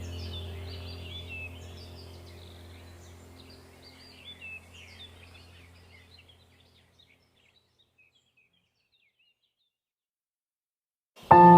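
Chirping songbirds over a soft background music drone, both fading out over about seven seconds. A few seconds of silence follow, then a loud, ringing music tone starts suddenly near the end.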